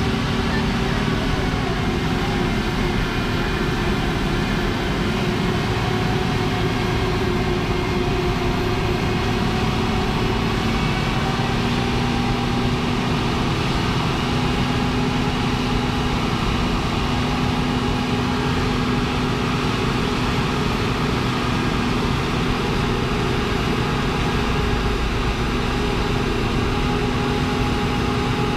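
Engine of heavy tree-removal and root-grinding machinery running steadily. Its note steps up slightly about twelve seconds in.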